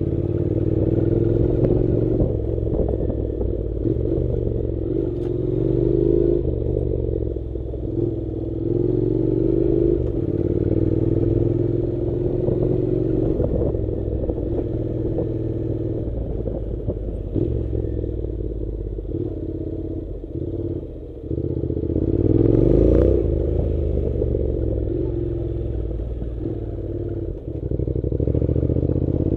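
Honda NC700's parallel-twin engine running under load on a rough dirt track, its note rising and falling with the throttle, with a brief rev-up about three-quarters of the way through. Knocks and rattles from the bike over the rough surface come through now and then.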